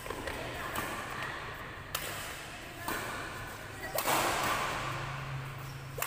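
Badminton rackets striking a shuttlecock in a rally: sharp, snapping hits about a second apart, echoing in a large hall.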